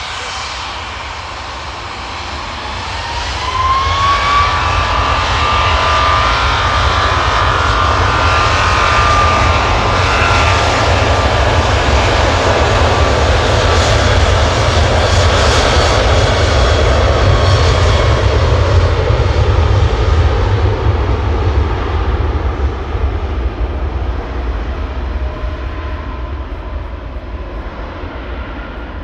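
Jet airliner engines spooling up for takeoff, with a whine rising in pitch over the first few seconds. The takeoff roar builds to full power with a deep rumble and is loudest past the middle. It then fades steadily as the aircraft departs.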